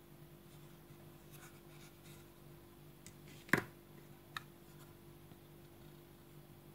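Wooden card holders handled on a wooden tabletop: light rubbing and scraping, then a sharp knock of wood on wood about three and a half seconds in and a lighter tap a moment later, over a faint steady hum.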